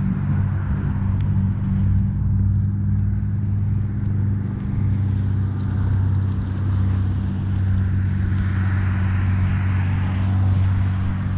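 A motor vehicle's engine running at a steady low pitch, with light rustling over it.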